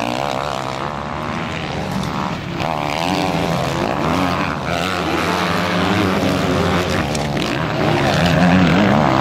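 Motocross bike engines revving, their pitch rising and falling with the throttle as riders come down a dirt track. The sound gets louder near the end as one bike passes close.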